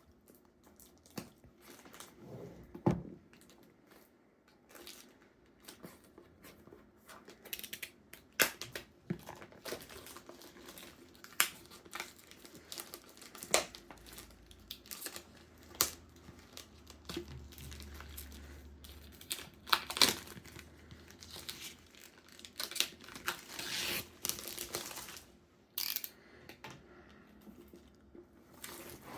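Packaging being handled and opened: plastic crinkling and tearing, with irregular knocks and clicks as the box and its contents are moved about.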